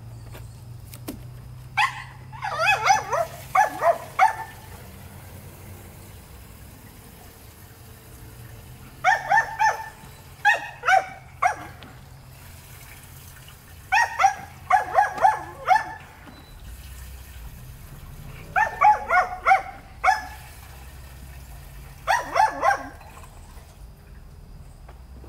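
A dog barking in five bursts of several quick, high-pitched barks, a few seconds apart.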